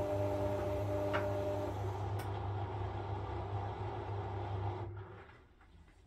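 Front-loading washing machine turning its drum with a puffer jacket inside: a steady motor hum with a low drone and higher steady tones, two light clicks, then the drum winds down and stops about five seconds in, the pause of a wash tumble before it reverses.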